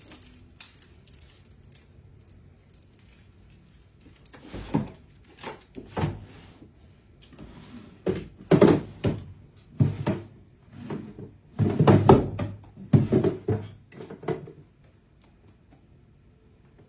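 Desk drawer being pulled open and rummaged through: irregular knocks, bumps and rattles of wood and small objects, coming in clusters for about ten seconds after a quiet start.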